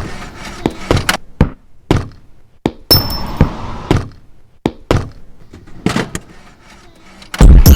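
Sparse, irregular knocks, taps and clicks made from sampled everyday environmental sounds, in a stripped-back break of an electronic track. About seven seconds in, the full beat comes back in loud, with heavy bass.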